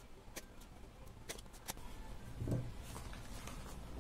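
Cardboard camera box being handled and opened: a few light clicks in the first two seconds, then a brief low rubbing sound about halfway through over faint rustling.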